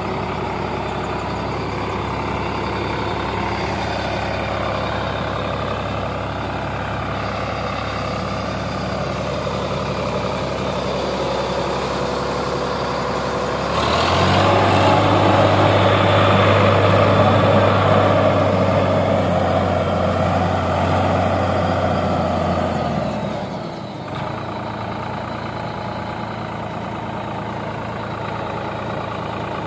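Sonalika DI 45 RX tractor's diesel engine running steadily; about halfway through it revs up and holds louder for about nine seconds while the hydraulic lift tips the loaded trailer, then drops back to a steady idle.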